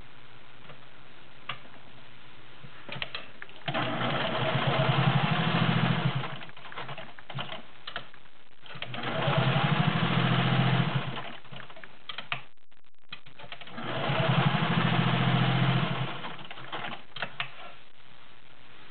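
All-metal, gear-driven Singer 500A Slant-O-Matic sewing machine stitching through 14 layers of cotton in three runs of about two seconds each, with a few short clicks between the runs.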